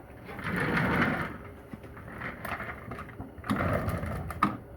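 Two bursts of scraping and rattling with sharp clicks, the first about a second long near the start and the second near the end: metal tools and parts being worked on a partly dismantled Corvair Powerglide transmission.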